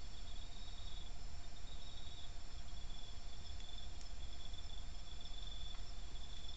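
Crickets and other night insects chirring steadily in fast, pulsing trills, with a steady lower-pitched drone and a low rumble underneath.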